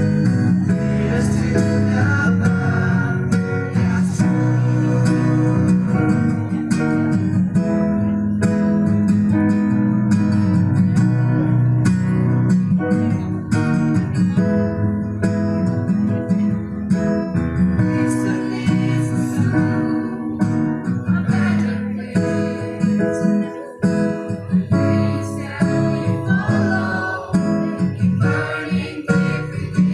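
Group of young voices singing together, accompanied by a strummed acoustic guitar and amplified through a stage sound system.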